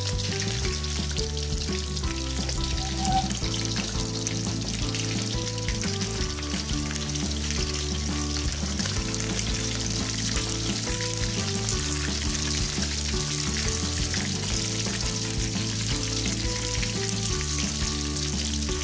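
Fish pieces sizzling steadily as they fry in hot oil in a metal wok, while a metal ladle turns them. Background music with changing notes plays underneath.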